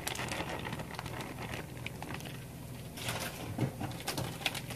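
Rice and diced vegetables pouring from a plastic bag into a frying pan, the grains pattering onto the pan in scattered clicks over a steady faint hiss.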